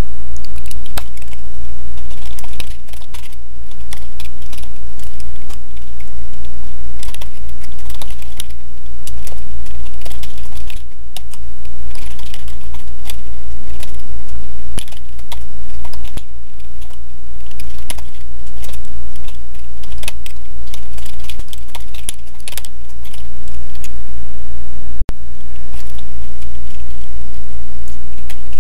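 Computer keyboard being typed on in irregular runs of clicks, over a loud steady low hum.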